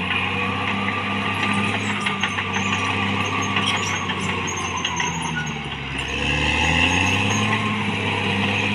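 Caterpillar D6R XL bulldozer's diesel engine running steadily, with scattered clanks and rattles in the middle. The engine drops off briefly near six seconds in, then comes back up louder.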